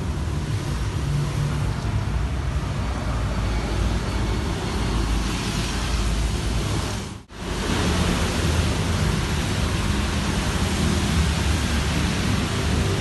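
Steady rumble of a running vehicle with a noisy hiss over it, cut off for an instant about seven seconds in.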